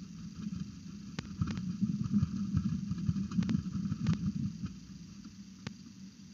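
Peregrine falcon flapping its wings hard on the gravel floor of a nest box close to the microphone: an uneven low fluttering rumble of wingbeats with a few sharp clicks mixed in. It is loudest in the middle and dies down near the end.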